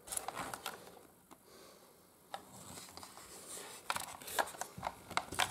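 Lazer Genesis bicycle helmet being turned over in the hands: soft rubbing of shell and straps with a scattering of small clicks and taps, more of them in the second half.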